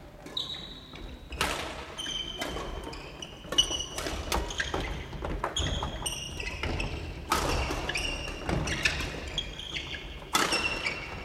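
Badminton rackets striking shuttlecocks in quick, irregular succession from several courts at once, mixed with short high squeaks of sneakers on the wooden gym floor, echoing in a large hall.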